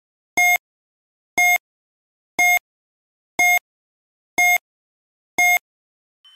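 Quiz countdown timer sound effect: a short electronic beep once a second, six times, each the same pitch and length.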